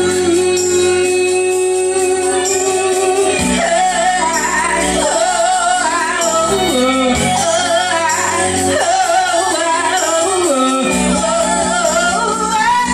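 A woman singing into a handheld microphone over instrumental backing, holding one long note for about the first three seconds, then singing a melody with a wavering vibrato.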